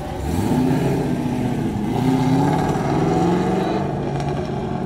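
Car engine revving and accelerating, its pitch climbing and dropping a few times, loudest in the middle.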